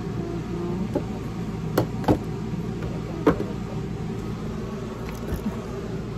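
Cans and food packages set down and knocked against a wooden pantry shelf: a handful of sharp knocks, the loudest about two and three seconds in, over a steady low hum.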